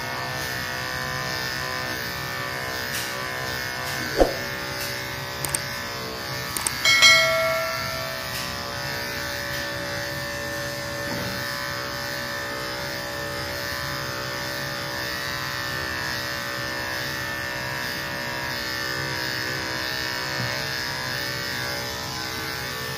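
Electric pet clipper buzzing steadily as it shaves through matted rabbit fur, with a few knocks about four and seven seconds in.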